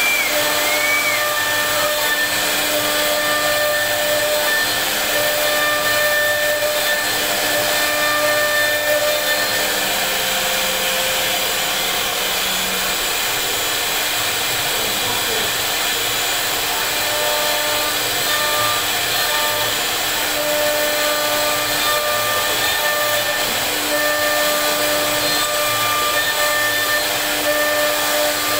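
CNC router spindle running steadily, its bit carving relief into a wooden panel: a constant hiss and cutting noise with a steady whine whose tones drop in and out as the cutter moves.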